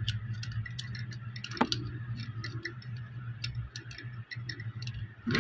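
Small irregular clicks and taps of hard plastic action-figure parts being handled and pressed together, with one sharper click about one and a half seconds in, over a steady low hum.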